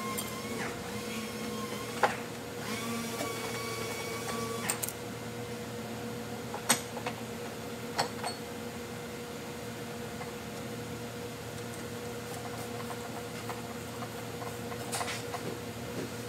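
Hand tools clinking sharply against metal bolt hardware a handful of times, the loudest about two seconds in, over a steady background hum.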